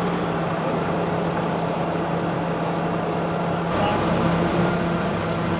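Heavy truck's diesel engine running steadily with a constant low hum, swelling a little about four seconds in, as the prime mover hauls a low-loader trailer.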